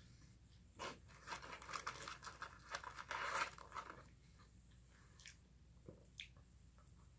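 A person biting and chewing crunchy fast food, a close burst of crunching that runs from about a second in to about four seconds, followed by a few faint clicks.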